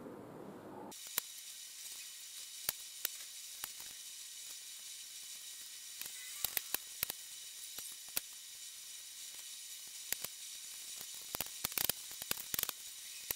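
Faint, high-pitched crackling hiss that starts abruptly about a second in, peppered with sharp clicks that come thicker near the end.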